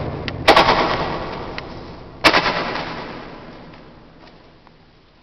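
Roman candle firing two shots about two seconds apart inside an ammunition bunker, each sharp pop trailed by a long echo that dies away.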